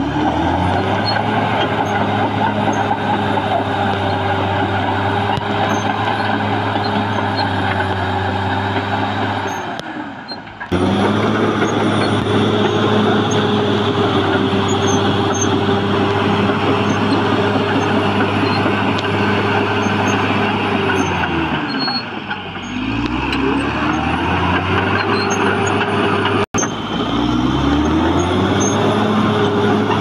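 Caterpillar D6R XL crawler bulldozer's diesel engine running at high revs under load while the blade pushes soil, the revs dropping away and climbing back up a few times.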